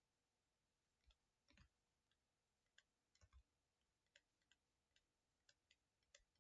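Near silence with about a dozen faint, irregular clicks and taps of a stylus on a writing tablet during handwriting.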